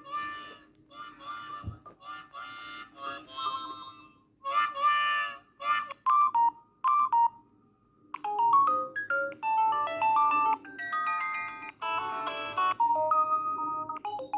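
Phone ringtones playing one after another. A riff of short, chord-like bursts fills the first six seconds. After a brief pause a little past the middle, a quick melody of beeping electronic notes follows.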